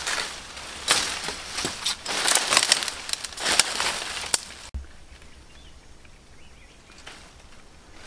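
Dry leaves, twigs and brush crackling and rustling under bare feet as a person steps and pushes through undergrowth, in a dense run of crackles for the first half, then much quieter after a sudden break about halfway through.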